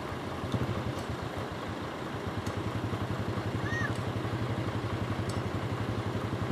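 Large bus diesel engine idling with a steady, even low throb.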